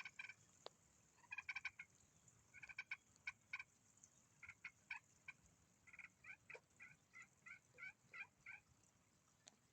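Wild turkey hen yelping and clucking: faint, short calls in scattered groups, then a run of about eight yelps at roughly three a second near the end.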